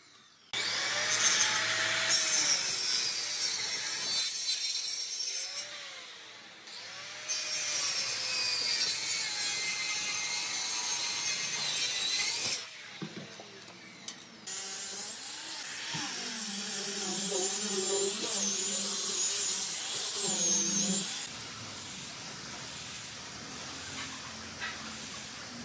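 Power tools working wood in a string of short clips that start and stop abruptly. The motor's pitch rises and falls as the tool is loaded against the wood.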